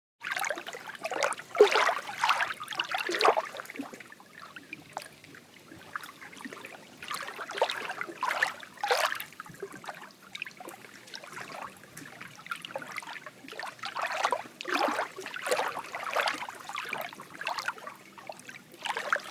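Lake water lapping and sloshing against a wooden dock, in irregular splashes every second or two.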